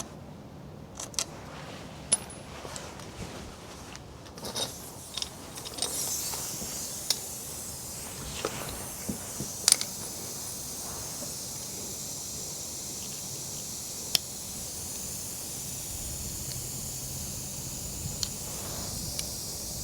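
Scattered light metallic clicks and clinks, then a steady high hiss that starts about six seconds in, with a few sharp clicks over it.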